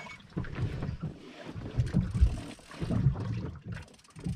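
Wind buffeting the microphone in uneven low gusts.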